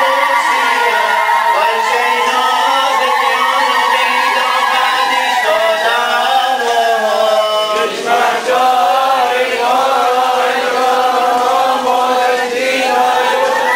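Men's voices chanting a liturgical hymn together in unison, with a short break for a new phrase about eight seconds in.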